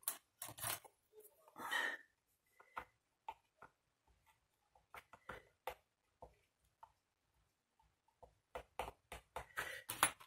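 Faint, scattered taps, clicks and rustles of hands handling stiff card and a small pointed tool, with a quicker run of clicks near the end.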